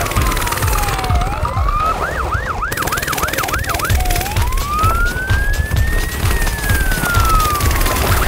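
Police siren: a falling wail, then a quick yelp of about four rising-and-falling sweeps a second for two seconds, then one slow wail that rises and falls. Under it runs background music with a steady bass beat.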